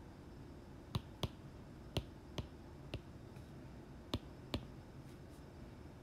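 Stylus tip tapping on an iPad's glass screen as handwritten strokes begin: seven sharp taps in the first four and a half seconds, the last two close together, over faint room hiss.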